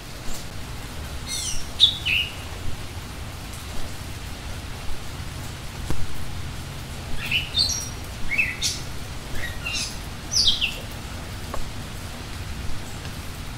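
Small songbirds calling: short falling chirps, a few at about one to two seconds in and a run between about seven and eleven seconds in, over a steady outdoor hiss.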